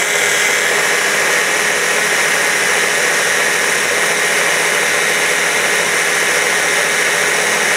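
Small stick blender with a mini chopper bowl running steadily, so loud, blending thick walnut and parsley pesto. A constant high whine rides over the motor noise.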